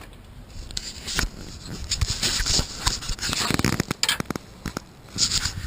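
Irregular rustling, scraping and small clicks of hand work with a tool and the hand-held camera.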